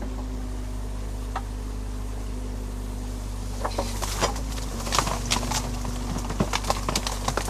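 Excavator diesel engine running steadily; from about halfway, the bucket tears into a beaver dam of sticks and mud with a quick run of sharp cracks and snaps of breaking branches.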